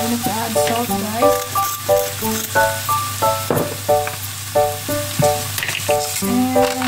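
Background music of short repeated notes, about two a second, over diced mushrooms, bacon and sausage sizzling as they fry in a pan.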